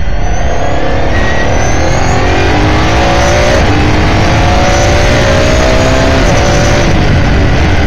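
S5000 open-wheeler's Ford 5.0-litre V8 at full throttle out of a corner, revs climbing through second gear. A quick upshift to third comes about three and a half seconds in, and the revs climb again to the shift lights.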